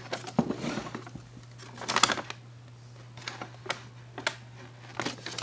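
A folded sheet of paper being unfolded and handled: light crinkling rustle with a series of sharp paper crackles, the busiest patch about two seconds in and single crackles after.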